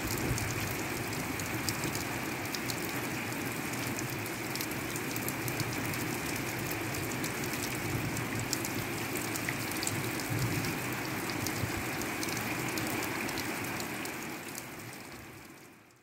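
Steady rain falling, with many small drops ticking on a hard surface; the sound fades out over the last two seconds.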